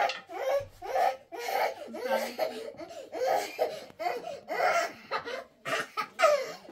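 A woman laughing heartily in quick repeated bursts, about two a second.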